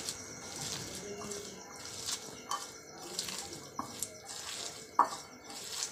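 A hand mixing and squeezing chopped onion, tomato, green chili and spice powders in a glass bowl: soft irregular rustling and squishing with scattered light clicks, one sharper click about five seconds in.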